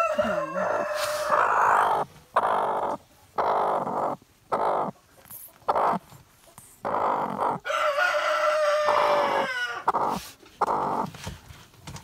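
Broody hen on her nest growling in a run of harsh, purr-like calls, about one a second, likened to a cat purring. Twice, at the start and about eight seconds in, a longer drawn-out note at a steady pitch.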